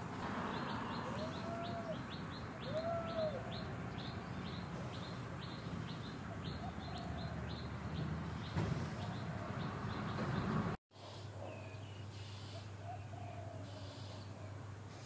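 Outdoor ambience with a bird chirping in a steady series, about two or three short high chirps a second, and a few short rising-and-falling calls. The sound cuts out for a split second about eleven seconds in, then the background carries on more quietly.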